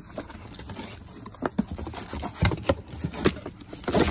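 Cardboard candle boxes being handled and pulled open: scraping and rustling with a few short knocks as candles are taken out of the boxes.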